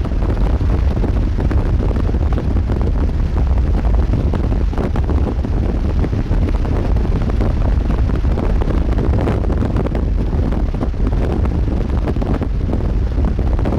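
Strong wind buffeting the microphone: a loud, steady low rumble with a gusting hiss over it.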